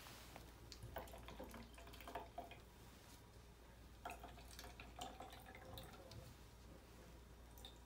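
Faint dripping and trickling of water squirted from a small 30 cc syringe into a plastic sample bottle, with a few light plastic clicks from handling.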